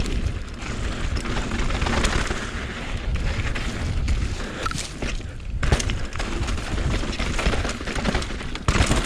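Wind buffeting the camera microphone of a downhill mountain bike at speed, with the bike clattering and knocking over rough trail. There is a sharp knock about six seconds in and a louder burst of clatter near the end.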